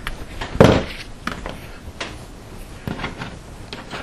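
Hands working a cable bundle: a few knocks and rubbing sounds, the loudest a single thump a little over half a second in.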